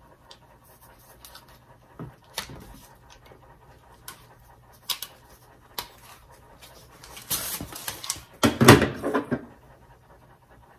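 Rubber drain hose being handled and fed through the hands: scattered light clicks and knocks, then a louder rubbing, scraping rustle for about two seconds near the end.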